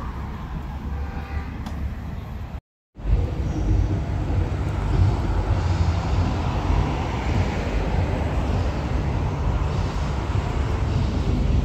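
City street traffic noise, steady with a deep low rumble. It cuts out completely for a moment about three seconds in, then comes back a little louder.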